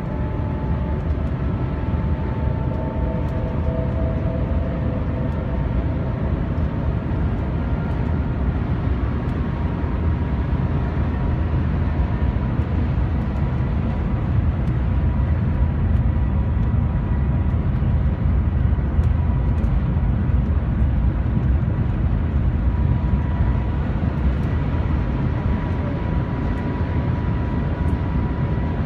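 Cabin noise inside the Shanghai Transrapid maglev train as it speeds up to about 300 km/h: a steady deep rush of air and vibration. A faint high whine becomes clearer about a third of the way through.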